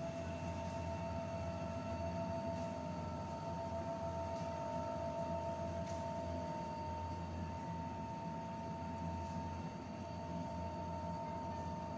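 Steady supermarket refrigeration hum: a constant low drone with two held whining tones from open refrigerated display cases, and a few faint clicks.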